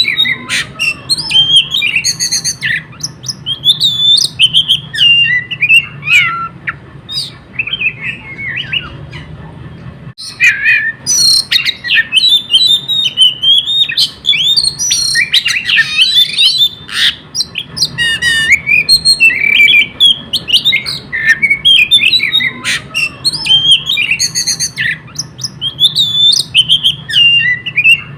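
Oriental magpie-robin (kacer) singing nonstop: a rapid, varied stream of chirps, whistles and squawky notes, full of mimicked phrases.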